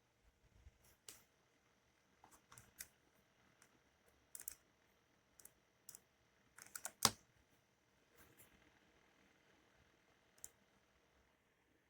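Faint, irregular clicks of keys being pressed on a small handheld Bluetooth keyboard, a dozen or so scattered presses with a quick cluster about seven seconds in.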